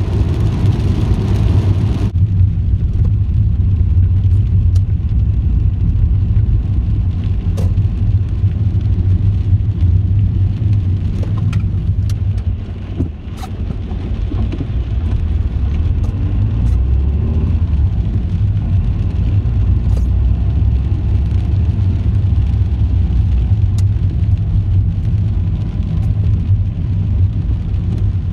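Inside a moving Audi A2's cabin in the rain: steady low engine and road rumble. Hiss from wet tyres and rain is strong at first and drops away abruptly about two seconds in. A few sharp ticks are scattered through the rest.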